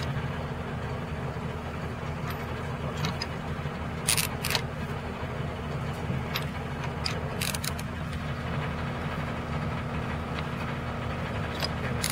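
Torque wrench and socket working the nut on a rail-mounted weighing transducer module, with a few sharp metallic clicks about four seconds in and again about seven seconds in. Under it, the steady low hum of an idling engine.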